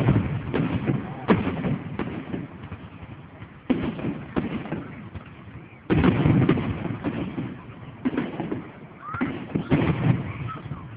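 Aerial fireworks shells bursting overhead, a series of about ten deep booms at uneven intervals, some in quick pairs, each trailing off in a rumbling echo.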